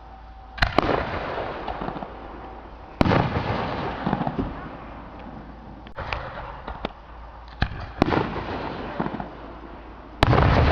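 Aerial fireworks shells bursting overhead: a series of sharp booms a few seconds apart, several in quick succession around the middle. Each boom is followed by a rolling echo.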